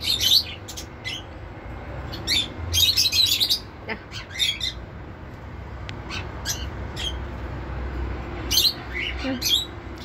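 Indian ringneck parakeet chirping and squawking in short, high-pitched calls that come in quick clusters, one about two to three seconds in and another near the end.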